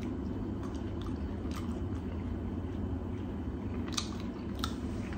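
Chewing on a piece of processed packaged meat snack, with a few soft mouth clicks, the clearest about four seconds in, over a steady low hum.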